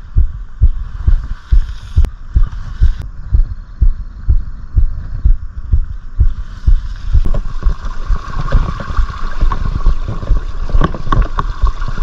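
Mountain bike ride picked up on a camera microphone: steady low thumps, about three a second. About seven seconds in, a hissing rush joins them.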